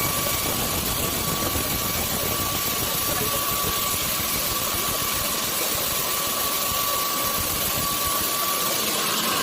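Sawmill machinery running steadily: an even, noisy drone with a faint high whine that comes and goes.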